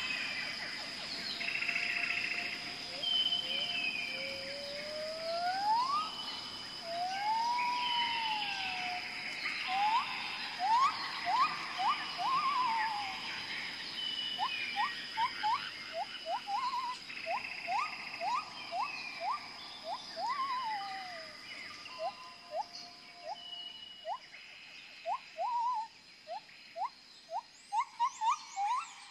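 Whistled bird calls: notes that glide up and down, quick runs of short rising notes and higher chirps, over a steady high-pitched tone.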